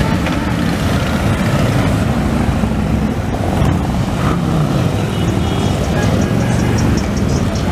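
Harley-Davidson V-twin motorcycles riding past one after another, their low exhaust rumble overlapping in a continuous drone, with one engine revving up and back down about four seconds in.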